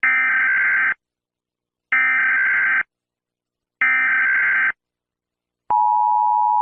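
Emergency Alert System tones: three buzzy data bursts of the digital SAME header, each about a second long and a second apart, then the steady two-tone EAS attention signal starting near the end.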